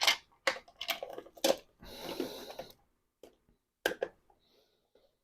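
Hard plastic clicks and knocks as an Atari 5200 controller's case and parts are handled and fitted together, with a short scraping rustle in the middle and one last click near the end.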